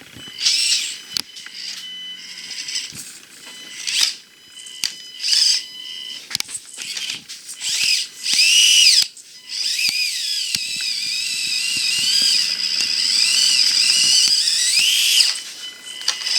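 Axial SCX24 1/24-scale crawler's small brushed electric motor and drivetrain whining in short throttle bursts, then a longer stretch of high whine whose pitch rises and falls with the throttle.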